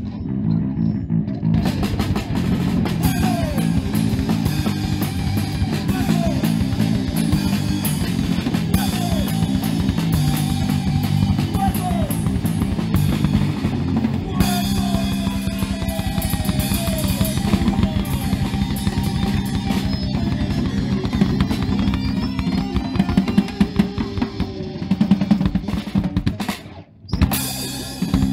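Live punk rock band playing an Oi! song on distorted electric guitars and a drum kit, with heavy bass drum and snare. Near the end the band stops short, hits one last chord, and it dies away.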